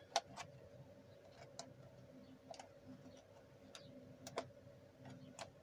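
Faint, irregular clicks and crackles of a cut plastic water bottle, packed with substrate, being gripped and shifted on a branch, about eight clicks spread unevenly, over a faint steady hum.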